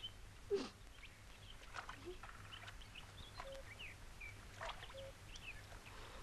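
Birds chirping and twittering: many short high calls, some gliding up or down, scattered throughout. A brief louder sound stands out about half a second in.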